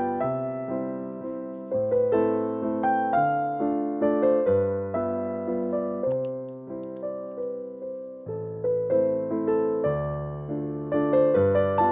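Background piano music: a gentle melody over held chords, with notes struck a few times a second.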